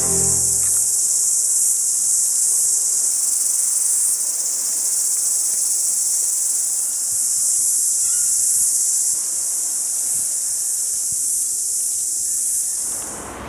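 Steady, high-pitched insect chorus: a dense, even hiss with no clear beat, fading out near the end.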